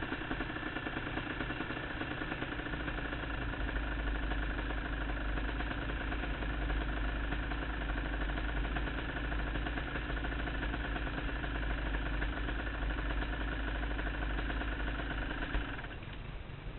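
Yamaha YZ125 two-stroke dirt bike engine idling steadily with the bike standing still; the sound cuts off near the end.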